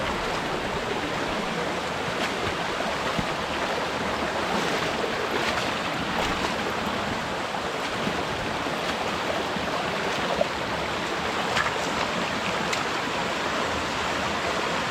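Steady rush of water from a forest waterfall, an even hiss with a few faint clicks.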